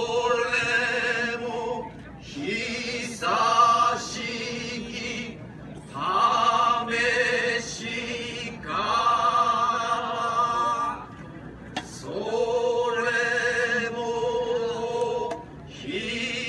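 Voices singing a slow traditional Japanese rice-planting song (taue-uta), drawn-out phrases of about two seconds, each with long held notes that waver, separated by short pauses.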